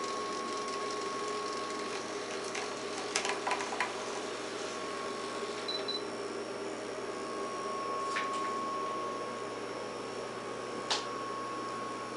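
Electric retract mechanism of an RC Dynam PBY Catalina model moving its scale wingtip floats: a steady small-motor whir with a few sharp clicks.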